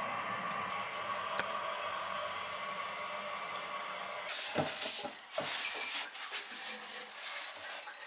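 Toilet tank refilling: water hissing steadily through the fill valve after a test flush, tapering off in the second half with a few knocks and clicks.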